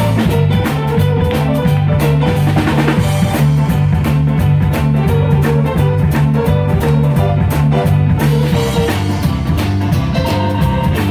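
Live band playing a boogie-woogie number, with a Rickenbacker electric bass walking a strong, moving bass line under a steady drum-kit beat.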